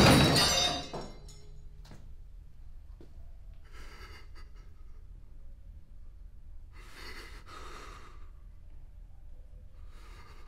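Dramatic film score fading out about a second in. Then a man in distress breathes three long, audible breaths a few seconds apart.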